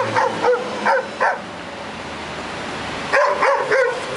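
A dog yapping in short, high-pitched barks: a quick run of about four in the first second and a half, then a pause, then another run about three seconds in.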